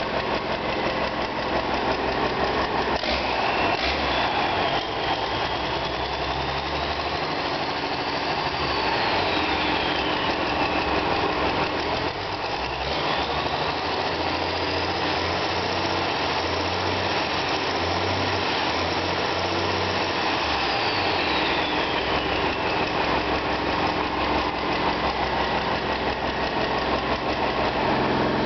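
Hanomag 964T turbo diesel engine running on a test stand. Its speed is raised twice and held for several seconds each time before dropping back, with a high whine, the turbocharger, rising and falling in pitch along with it.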